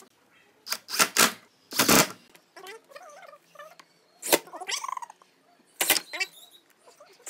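Cordless drill driving screws through webbing straps into wooden slats in several short, loud bursts, the one about two seconds in lasting longest.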